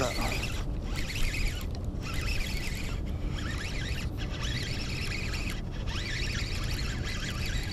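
Baitcasting reel being cranked to bring in a small hooked fish, with rubbing and handling noise over a steady low rumble.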